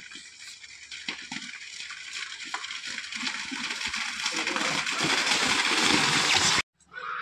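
Racing kambala buffaloes splashing through the flooded mud track, the sloshing growing steadily louder as they approach and then cutting off suddenly near the end.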